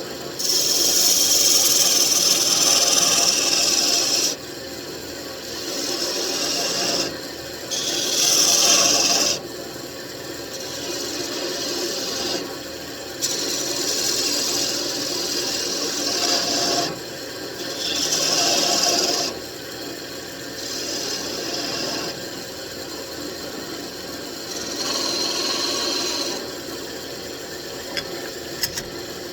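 Wood lathe running with a steady hum while the spinning mahogany workpiece is worked, giving five or six stretches of loud scraping, each one to four seconds long, the longest in the first four seconds.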